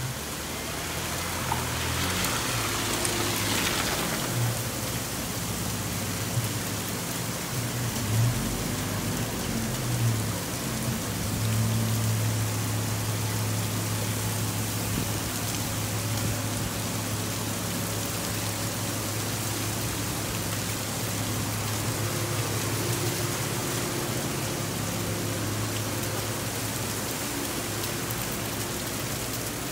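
Heavy thunderstorm rain pouring steadily onto pavement. A low steady hum runs underneath, strongest through the middle.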